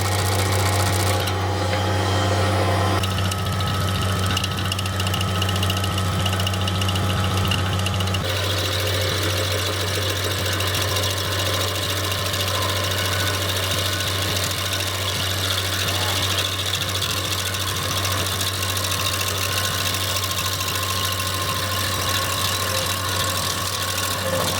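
Bobcat MT-100 mini track loader running steadily with its stump-grinder attachment, a constant low engine hum under a changing higher machine noise that shifts about three and eight seconds in.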